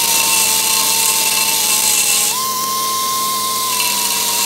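Mini belt sander with an 80-grit belt grinding into 3/16-inch steel plate: a steady high whine over hiss. The pitch sags, jumps back up about two seconds in, and sags again near the end. The light tool is too weak for steel this thick, which the owner finds shreds its belts without getting far.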